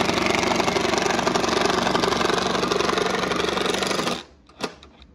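Cordless impact wrench with a socket on an extension running a bolt on the battery pack's metal module bracket, hammering with a fast steady rattle for about four seconds and then stopping abruptly. A single click follows just after.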